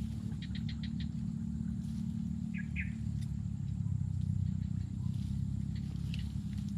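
A steady low rumble, with a few faint clicks in the first second and two short bird chirps about two and a half seconds in.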